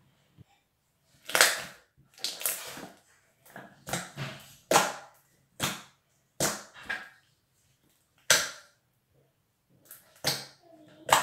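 Big, soft slime squished and poked with the fingers, giving about ten separate short squelches and pops with quiet gaps between them.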